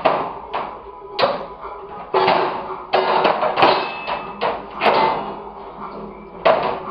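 A collie puppy's shiny metal food bowl being pawed and shoved around the floor of a wire dog crate, clattering with about ten irregular knocks, each ringing briefly.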